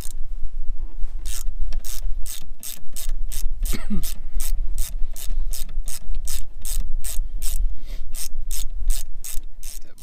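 Ratchet wrench clicking in a steady run, about three clicks a second, as it works the 14 mm bolt on the emergency brake cable bracket, over a low steady hum.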